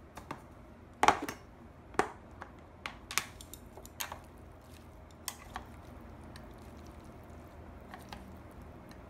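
Stainless-steel food containers being handled on a table: a lid coming off and the tin set down, with a few sharp clinks and knocks, the loudest about a second in. Later, wooden chopsticks click against the metal container while picking up shredded carrot.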